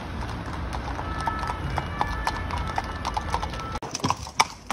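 Several horses walking on a paved road, their hooves clip-clopping in an uneven beat over a low steady rumble. Near the end the hoofbeats turn sharper and closer.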